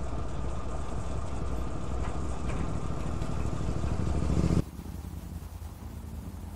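Motorcycle running on the move, growing louder over about four and a half seconds, then cutting off abruptly to a quieter stretch of the same riding sound.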